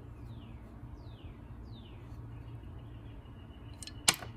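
A single sharp click near the end over a steady low hum, with three faint, quick falling chirps in the first two seconds.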